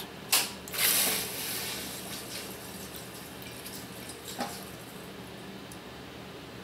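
Well pump system starting up after power is restored: a sharp click, then water rushing through the pipes into the empty, drained pressure tank. The rush is loudest at first and settles into a steady hiss as the system begins to build pressure.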